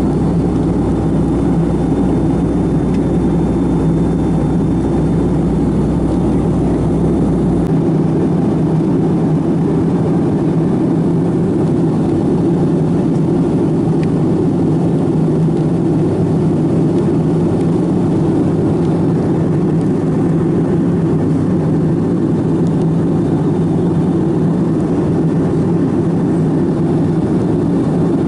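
Steady jet engine and airflow noise inside the passenger cabin of a Boeing 757-200 in flight, a dense, even rumble with no breaks; its deepest part drops away about eight seconds in.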